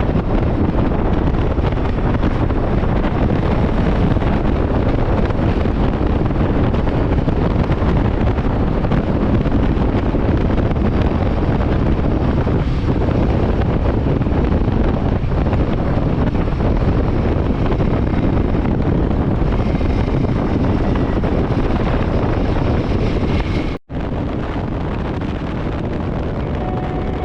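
Wind rushing over the microphone of a moving motorcycle, a Royal Enfield Himalayan 450, with its single-cylinder engine running underneath. The sound breaks off for an instant about 24 seconds in and picks up again slightly quieter.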